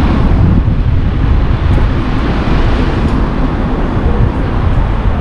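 Car driving along, with a steady, heavy low rumble of road and wind noise on the microphone.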